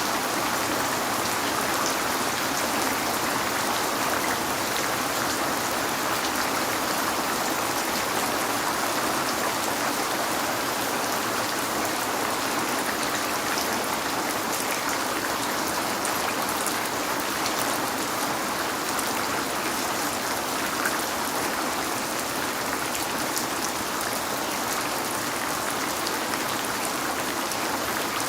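Steady rain falling, a continuous hiss of spray made up of many small drop ticks, with no let-up and no thunder.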